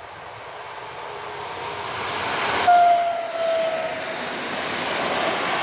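Passenger multiple-unit train approaching, its running noise growing steadily louder. About two and a half seconds in, the train gives one long horn blast lasting over a second and falling slightly in pitch: the Polish Rp1 "Baczność" (attention) warning signal.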